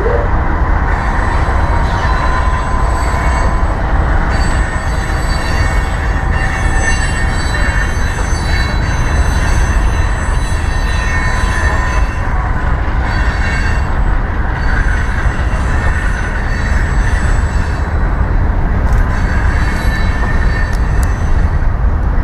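General Electric AC4400CW-type diesel locomotives passing under power with a heavy, steady rumble. Several thin, high-pitched whines run over the rumble throughout.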